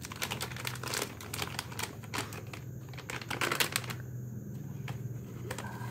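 Plastic-foil coffee sachets crinkling and crackling in the hands as they are worked open. There are dense runs of sharp crackles for about the first four seconds, then only a few.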